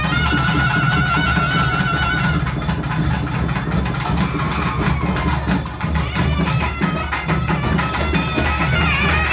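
Live Tamil temple folk band: drums beat a dense, steady rhythm under a wind instrument that holds one high note for about two seconds, then plays a moving, gliding melody that climbs near the end.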